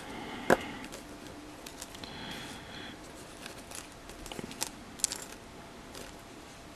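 Small clicks and taps of plastic model-kit parts handled with chopsticks: one sharp click about half a second in, then a cluster of light ticks a few seconds later.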